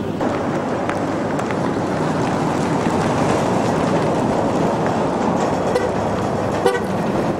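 Pickup truck towing a horse trailer driving past, a steady rush of engine and tyre noise. A short toot sounds near the end.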